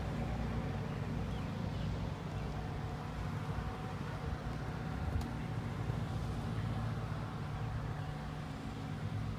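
A steady low engine hum with no breaks, and one sharp click about five seconds in.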